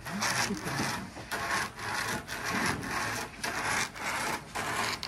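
Sago palm pith being grated by hand with a nail-studded wooden plank drawn back and forth across the block: rasping wood-and-nail scrapes in a steady rhythm of about two strokes a second.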